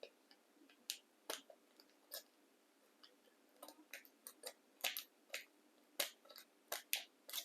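A plastic slime packet being handled and cut open with scissors: scattered small clicks and crackles at an irregular pace, a few a second.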